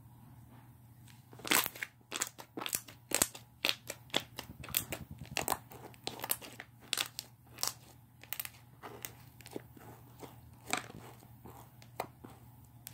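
Slime being squished and kneaded by hand, giving a quick, irregular run of crackling clicks and pops that starts about a second and a half in and thins out near the end.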